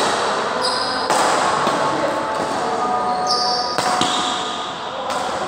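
Badminton rally in a large indoor hall: several sharp smacks of rackets hitting the shuttlecock, with short high squeaks of shoes on the court floor.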